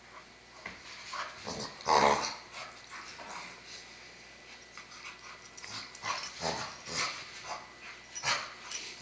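Two dogs play-fighting: low growls and small vocal sounds over scuffling, with one loud short cry about two seconds in.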